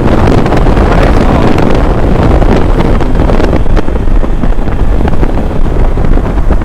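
Wind rushing hard over the microphone of a Hero Xpulse 200 motorcycle riding at highway speed, with the bike's single-cylinder engine running beneath it.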